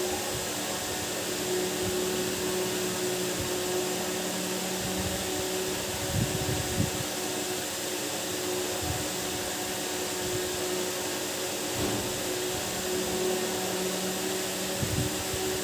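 Steady whirring noise with a low hum running under it, like a running fan or small motor, with a few soft low thumps about six seconds in and near the end.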